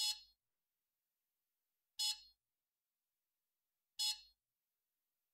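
Lactoscan S ultrasonic milk analyzer sounding its cleaning reminder: three short electronic beeps, two seconds apart. The signal means cleaning is due, 15 minutes after the last milk sample was measured.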